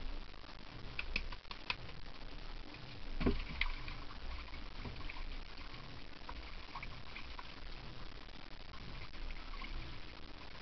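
Water lapping and wind noise aboard a small boat at sea, with a few light clicks about a second in and a dull knock about three seconds in.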